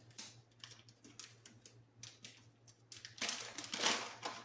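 Whole roasted coffee beans being handled: scattered light clicks, then about a second of dense rattling near the end as the beans shift and pour.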